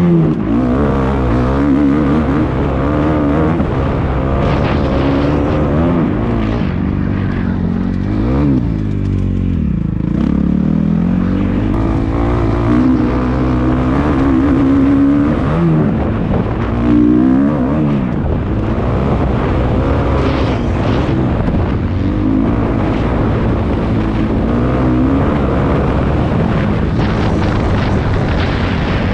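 Kawasaki KX250F motocross bike's single-cylinder four-stroke engine being ridden hard, its pitch rising and falling over and over as the throttle is opened and chopped.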